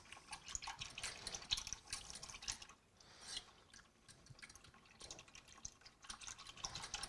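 Thick sauce being stirred in a ceramic bowl with a metal utensil: wet liquid sounds and light clicks of metal against the bowl in quick, irregular strokes, stirring out lumps of cornstarch. The stirring goes quieter for a moment a little before halfway.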